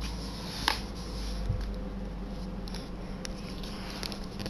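Handling noise: a low rumble of the recording phone being moved about, with a sharp click about two-thirds of a second in, a dull thump about a second and a half in, and a few lighter clicks after, from the laptop being handled.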